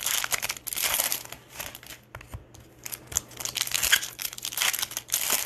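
Foil wrapper of a Bowman baseball card pack crinkling and rustling in the hands in uneven bursts, with a quieter moment about two seconds in.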